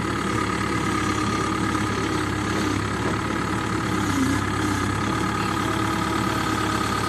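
Cat 305 mini excavator's diesel engine running steadily, with a steady high whine over the engine note.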